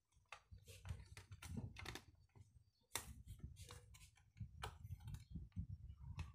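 Faint irregular clicks and scrapes of a black plastic enclosure's lid being pressed and shifted into place by hand, with a few sharper snaps about three seconds in and near the end.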